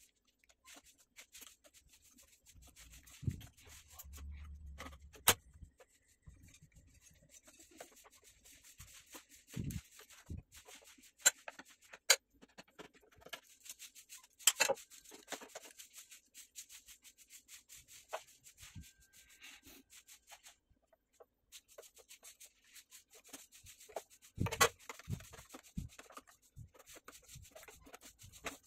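Hands handling circuit boards and a metal-shielded module inside an opened soundbar: quiet rubbing and scraping, with scattered sharp clicks and taps of plastic and metal parts.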